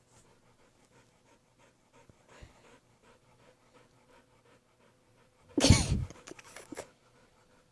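A frightened dog panting faintly and quickly. About five and a half seconds in comes a short, loud burst of noise, followed by a few smaller ones.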